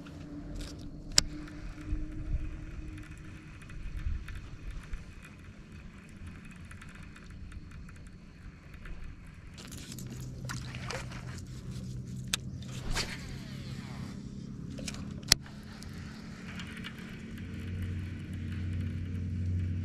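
Electric bow-mount trolling motor humming steadily, growing stronger about halfway through. Over it, a baitcasting reel whirs on a cast about halfway through, and there are two sharp clicks, the loudest sounds.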